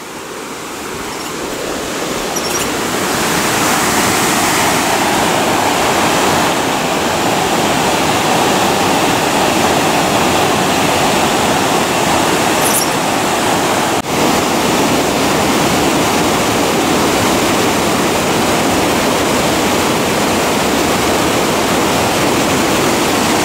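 Fast mountain creek rushing over rocks in whitewater: a steady, loud rush of water that swells up over the first few seconds.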